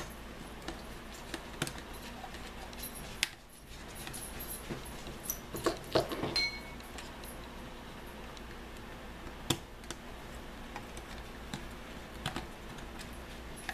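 Scattered light clicks and taps of a small Phillips screwdriver and small screws against a plastic quadcopter body as its motor-cover screws are taken out, over a low steady hum.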